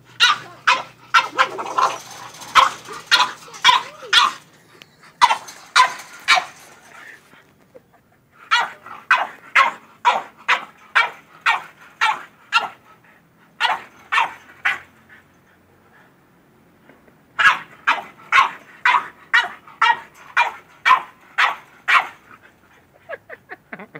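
French bulldog barking at a goat in runs of quick barks, about two a second, with a few pauses of a second or two between runs: excited barking at the goat.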